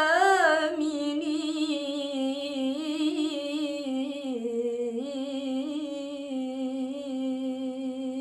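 A woman's voice reciting the Quran, drawing out one long melodic note with quick wavering ornaments in the first second, then holding it steadier with slow rises and falls.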